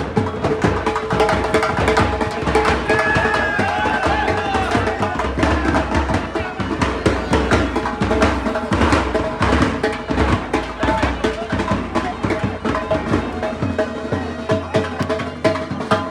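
Drum-led music with rapid drum strokes over a steady held tone, with voices mixed in.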